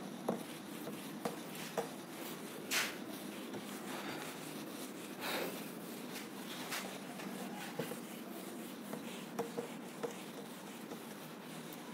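Hand-held whiteboard eraser rubbing marker writing off a whiteboard: faint swishing strokes with a few light clicks and knocks.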